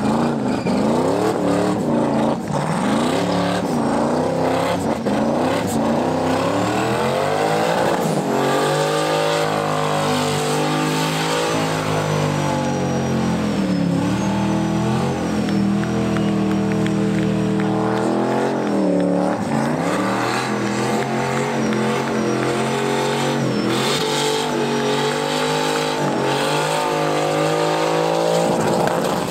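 A car doing a burnout: the engine is revved hard again and again, its pitch rising and falling, while the spinning tyres squeal thinly on the asphalt.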